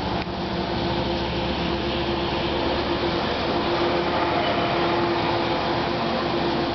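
Bi-level passenger coaches of the West Coast Express commuter train rolling past close by: a steady rumble of wheels on rail with a steady hum running through it.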